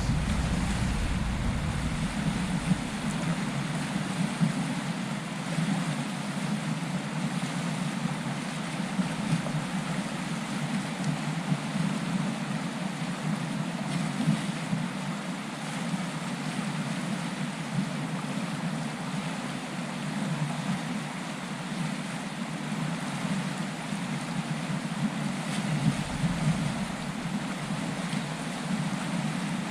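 Steady rush of a flowing trout stream, with a low rumble at the start and again near the end.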